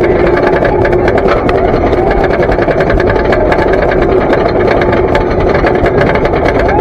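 Wooden roller coaster train climbing the chain lift hill: a loud, steady mechanical clatter from the lift chain and train, laced with rapid clicks.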